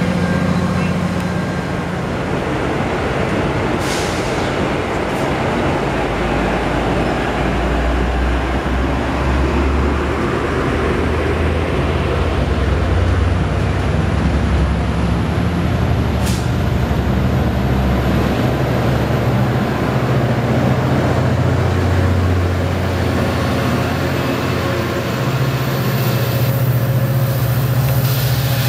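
Amtrak diesel passenger train moving through a station: a steady, loud rumble of the diesel locomotive and rolling bilevel coaches. There is a sharp click about four seconds in and another about sixteen seconds in, and a steadier low engine drone near the end.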